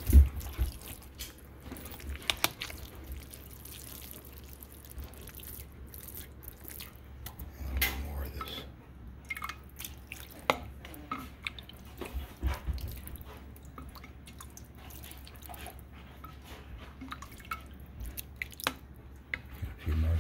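A large spoon stirring a wet mash of shredded chicken, vegetables and rice in a metal mixing bowl: soft wet stirring with scattered clicks and knocks of the spoon against the bowl, and gravy dripping.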